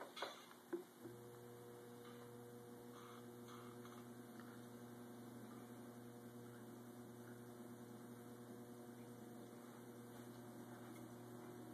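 Electric potter's wheel motor starting up about a second in, then humming faintly and steadily, after a few short knocks of handling at the wheel.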